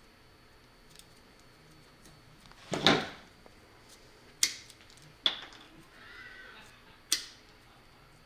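Hand tools working on electrical cable. About three seconds in there is a rasping pull, like a cable stripper drawing the jacket off 12-3 cable, followed by three sharp clicks over the next few seconds.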